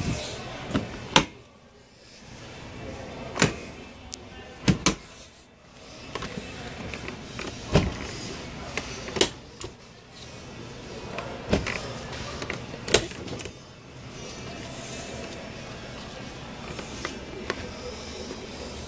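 Wire dishwasher racks being slid in and out on their rollers, with a series of sharp clacks and knocks at irregular intervals over a steady background hum.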